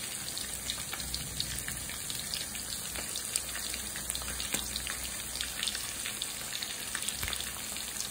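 Rohu fish steaks shallow-frying in hot oil in a kadhai: a steady sizzle dotted with many small crackles and pops.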